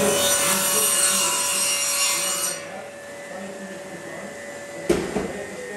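Electric drop saw cutting through an engineered pine-and-oak floor plank, the loud cut lasting about two and a half seconds. It then drops to a quieter steady hum, and a single knock comes near the end.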